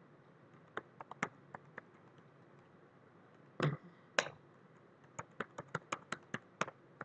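Typing on a computer keyboard. A few scattered keystrokes come first, then two heavier knocks about halfway through, then a quick run of about nine keystrokes near the end.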